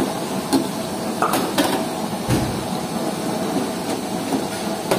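A spatula scraping and knocking against a frying pan as dal mash is stirred over a high gas flame, with a steady hiss of frying underneath. There are a handful of sharp knocks at irregular intervals.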